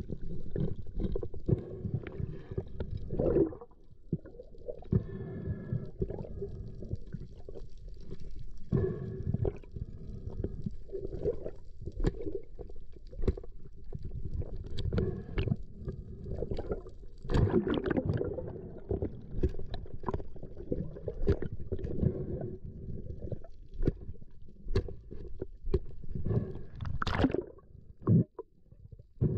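Muffled water sloshing and gurgling with scattered knocks and bumps, as picked up by an action camera inside its waterproof housing during a dive.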